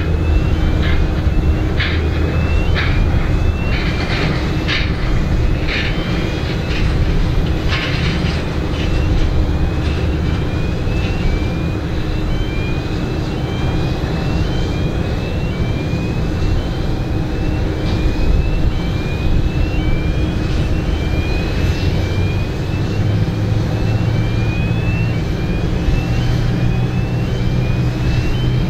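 Airbus A350 on final approach, its Rolls-Royce Trent XWB jet engines making a steady rumble, with a low hum that rises in pitch near the end. A short rising chirp repeats about once a second.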